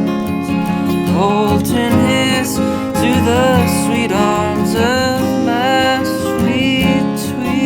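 A country-style song with acoustic guitar, over which a melody line slides up and down in pitch.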